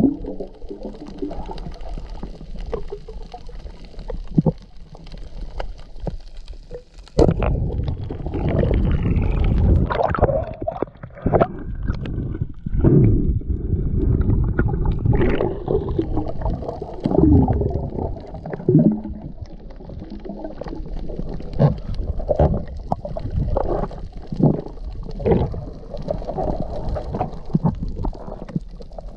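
Muffled water noise picked up underwater: uneven low rumbling and gurgling with frequent short knocks and splashes as a snorkeller swims over a reef.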